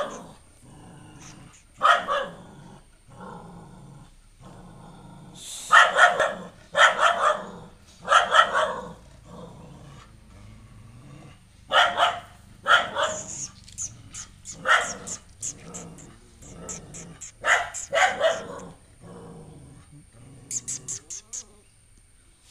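A dog barking repeatedly at a strange puppy, in single barks and quick runs of two or three with short pauses between, a warning at the newcomer.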